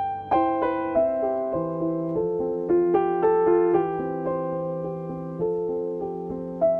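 Background music: a slow piano melody, single notes struck one after another and left to ring over a held low note.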